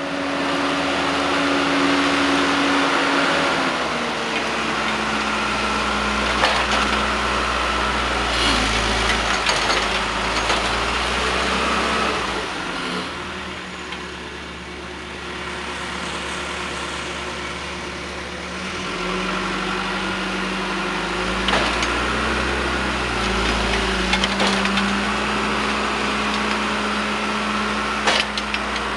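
Diesel engine of a John Deere 310-series backhoe loader running as it clears snow, its engine speed stepping up and down several times, with a few sharp knocks.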